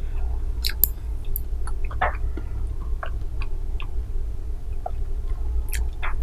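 Close-miked chewing of soft fruit jelly: scattered wet clicks and smacks over a steady low hum.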